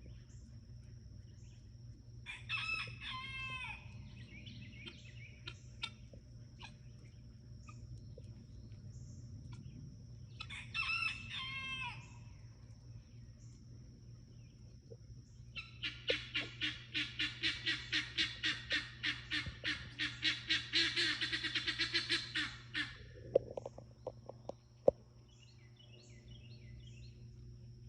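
Guinea fowl calling: two drawn-out calls several seconds apart, then a long rapid string of harsh repeated notes, about four or five a second, lasting roughly seven seconds.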